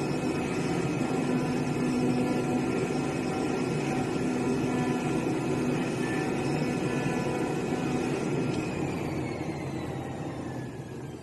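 CNC fabric and leather cutting machine running with a steady mechanical whine made of several tones. About three-quarters of the way through, the tones slide down in pitch and the sound fades as the machine's motor winds down.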